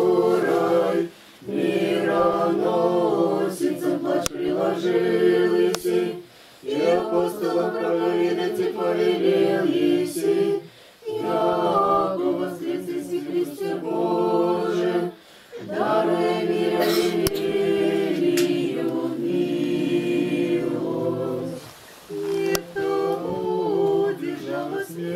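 Small a cappella choir singing Orthodox liturgical chant in Church Slavonic, in held phrases of several seconds with short breaks between them.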